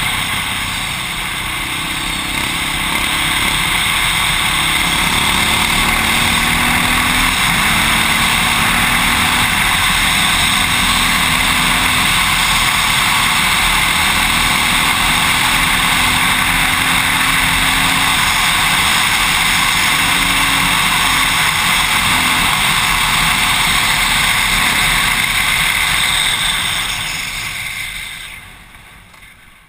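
KTM 625 SMC's single-cylinder engine running at road speed under a steady rush of wind noise on the helmet-mounted microphone. The sound falls away sharply near the end as the bike slows down.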